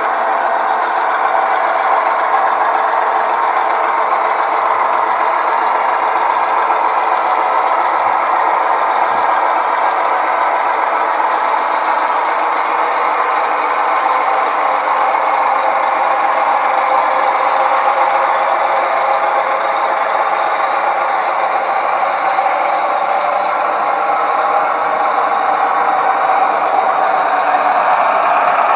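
Model diesel locomotive's sound decoder playing a steady diesel engine running sound through the model's speaker, with the throttle turned up.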